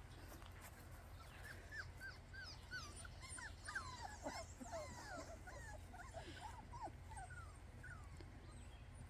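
Five-week-old Miniature American Shepherd puppies whimpering and yipping in many short, high, rising-and-falling whines, several overlapping, busiest in the middle and thinning out near the end.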